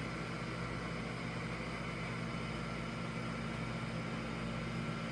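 Steady room tone: a constant low electrical hum with an even hiss over it, unchanging throughout.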